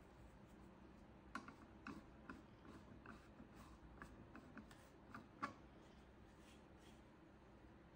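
A run of about a dozen soft, short clicks and taps, like small objects being handled, starting about a second in and stopping past the middle, the loudest one near the end of the run.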